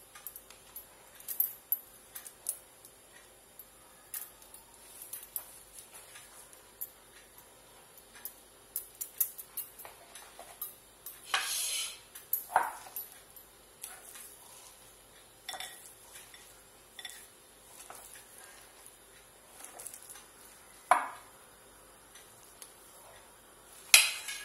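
Scattered clinks and scrapes of a metal spoon against a glass mixing bowl, with metal bangles knocking together, while a soft mince mixture is mixed by hand. There is a longer scrape about eleven seconds in, and sharper clinks around twelve and twenty-one seconds and near the end.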